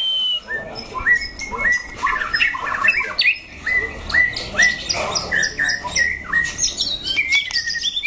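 Several caged white-rumped shamas calling together: a run of short, sharp notes about twice a second, mixed with quick high chips and chatter.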